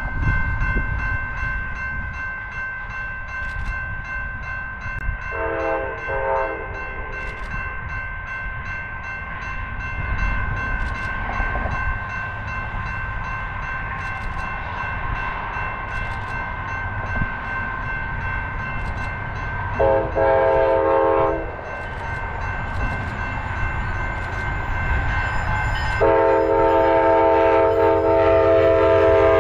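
Amtrak P42DC diesel locomotive's air horn blowing as the train approaches. A short blast comes about five seconds in and a longer one about twenty seconds in, then a louder continuous blast starts about four seconds before the end, as the train draws near.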